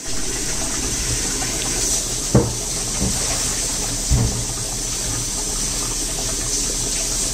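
Mutton broth boiling hard in a large metal pot: a steady bubbling hiss with a few louder low plops, the strongest about two and a half and four seconds in.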